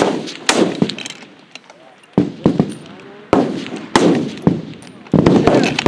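Rifle shots from F-Class target rifles on a long-range firing line: about nine sharp reports at irregular spacing, each with an echoing tail, several of them close together near the end.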